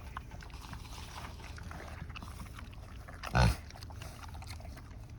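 Pigs chewing grapes with faint wet smacking, and one short loud pig grunt about three and a half seconds in.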